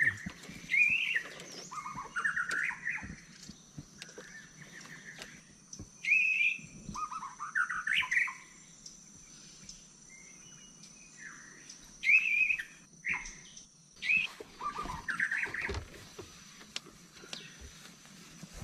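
Wild forest birds singing, short sweeping phrases repeated every couple of seconds, with a faint steady high tone behind them.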